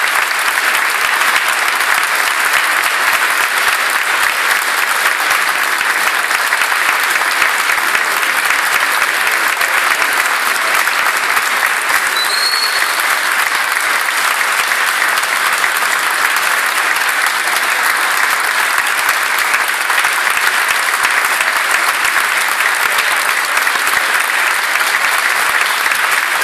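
Concert audience applauding: dense, steady clapping from a full hall that runs on without a break.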